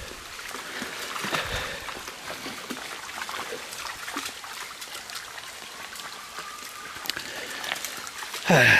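Shallow creek water trickling and running steadily over rocks. A short, loud voice-like sound comes near the end.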